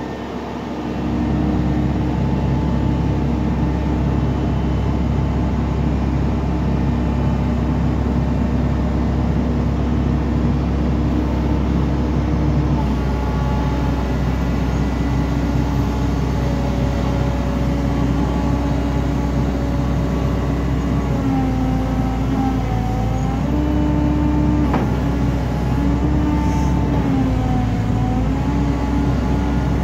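JCB JS145W wheeled material handler's diesel engine running, with its hydraulics working the elevating cab and boom. The engine note steps up about a second in, then sags and recovers a few times in the later part as the boom moves.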